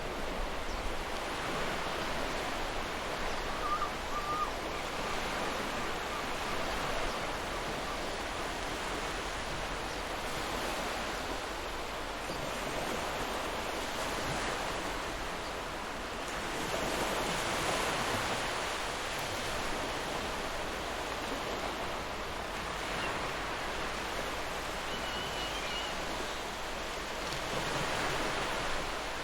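Gentle ocean waves washing onto a shore, a steady rush of surf that swells and eases every several seconds. Two brief faint chirps sound over it, one a few seconds in and one near the end.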